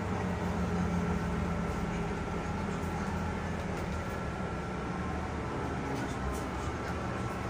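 Solaris Urbino 12 IV city bus under way, heard from inside the passenger cabin: a steady low engine drone with road noise and a faint steady high whine.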